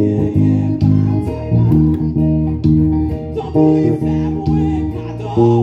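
Electric bass guitar played fingerstyle: a melodic run of plucked, sustained notes, changing about every half second.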